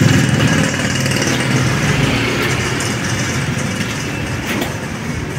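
An engine running at idle, a steady low pulsing, loudest at the start and slowly fading.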